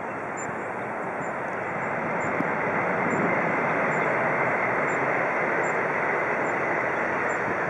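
Jet noise from a Boeing 747-400's four turbofan engines as the airliner rolls along the runway after landing: a steady rushing roar that swells over the first few seconds as the jet draws nearer.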